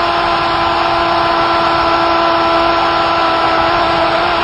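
A football commentator's long drawn-out goal cry, one held note that does not waver, over the roar of a cheering stadium crowd.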